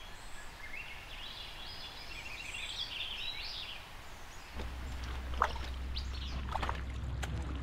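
A songbird sings a long, jumbled warbling phrase over outdoor ambience. About four and a half seconds in, it gives way to a low steady rumble with scattered splashes and clicks of boots wading through shallow river water.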